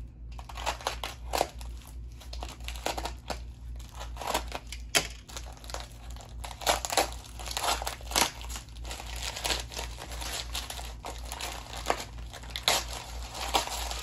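Packaging crinkling and rustling by hand in short, irregular crackles as a small wrapped item is unwrapped.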